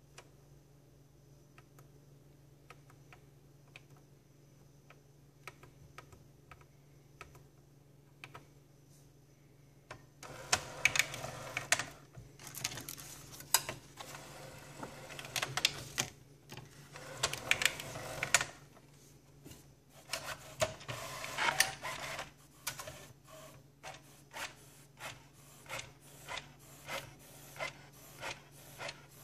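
HP Photosmart A616 compact photo printer printing. A few faint clicks at first, then about ten seconds in its paper-feed mechanism starts up with repeated loud whirring, grinding bursts and sharp clicks. It settles near the end into a regular ticking, a little over one a second, as the printed sheet is fed out the front.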